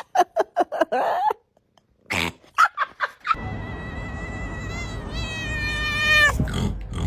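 Cat vocalising: a quick run of short meowing calls, a pause, a few more, then one long drawn-out yowl that wavers and drops in pitch as it ends, with a low rumble underneath.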